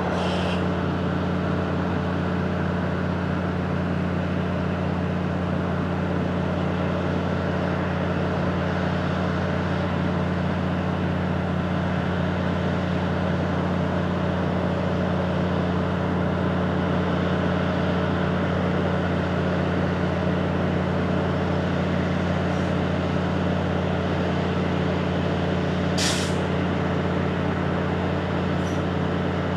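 Diesel multiple-unit train idling steadily with a low engine hum, with short hisses of air from its brakes near the start and again near the end.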